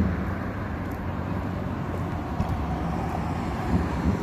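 Steady road traffic noise with a low rumble, from cars on a multi-lane road beside the sidewalk.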